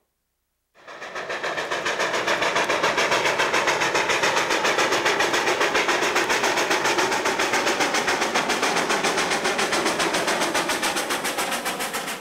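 Steam locomotive running, its exhaust beating in an even rhythm of about five beats a second. It fades in after a moment of silence and begins to fade out near the end.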